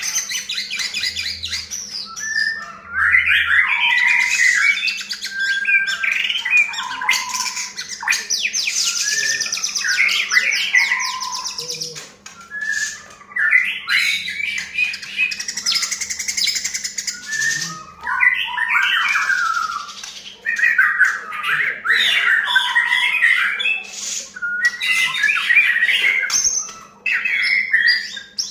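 White-rumped shama (murai batu) singing a long, varied song of rich whistles and rapid chattering phrases, with short pauses between phrases. It is a lure song ('pancingan') of the kind played to set a shama singing. A faint steady hum runs underneath.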